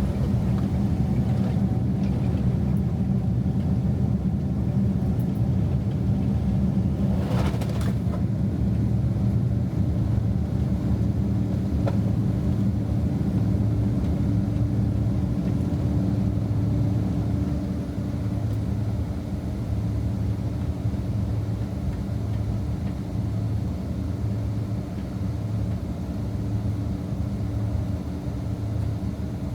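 Boeing 767-300 cabin noise heard from a window seat: a steady low rumble of engines and airframe. About seven seconds in there is a brief hiss, a faint steady hum sets in around ten seconds, and the rumble eases slightly later on.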